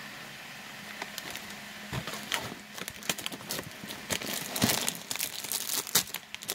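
Plastic wrapper of a cookie package crinkling as it is handled and opened, in irregular crackles that start about a second in and grow busier toward the end.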